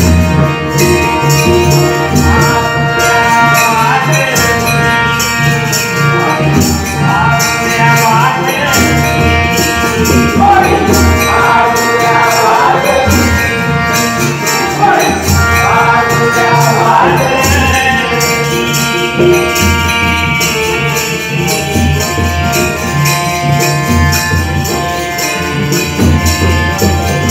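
Konkan-style devotional bhajan music: pakhawaj and tabla drumming with jingling metal percussion keeping a steady rhythm under held tones and a flowing melody line.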